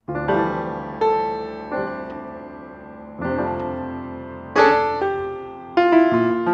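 Slow, gentle solo piano music: chords struck about every second or so, each ringing out and fading before the next.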